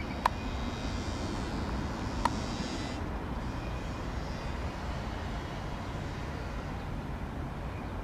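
Low, steady jet rumble of an Airbus A319 after take-off, well below its earlier roar. Two sharp clicks about two seconds apart near the start.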